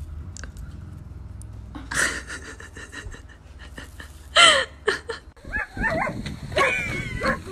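A dog vocalizing in a few loud short bursts, the later calls wavering up and down in pitch.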